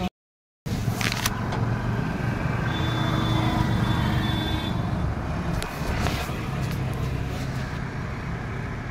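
Tractor diesel engine running steadily at idle, after a brief dropout just after the start.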